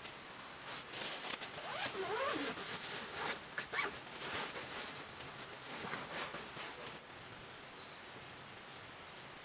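Steady heavy rain on the tent, with a stretch of louder rasping and crackling sounds in the middle that stops about seven seconds in.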